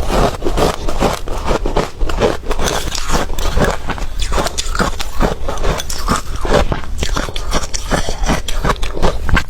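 Close-miked chewing of ice: a rapid, continuous run of crunches as the ice is bitten and ground between the teeth.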